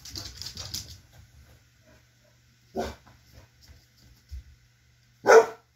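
A dog barks twice, single short barks about two and a half seconds apart, the second much louder. Before them comes a brief stretch of rustling and scuffling.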